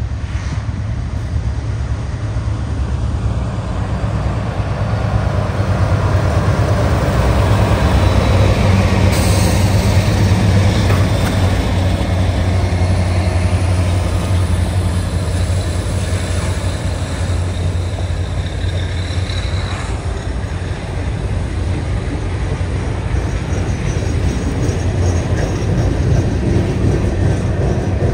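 Norfolk Southern freight train rolling past: a steady low rumble of steel wheels on rail as its gondola cars go by.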